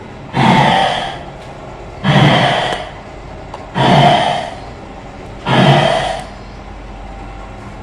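Recorded animal breathing or growling played from a statue's loudspeaker in a repeating loop: four breathy, rasping bursts, each just under a second long, about every second and a half to two seconds.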